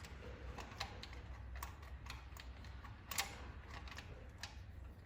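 Light, irregular clicks and taps of hand tools and parts being handled in a truck's engine bay during spark plug removal, with a sharper click about three seconds in, over a low steady hum.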